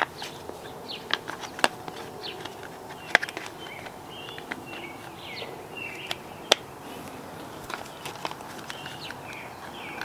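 Sharp, irregular clicks and taps of the plastic door latch assembly and its covers being handled and snapped back on, loudest around three and six and a half seconds in. Birds chirp faintly in the background.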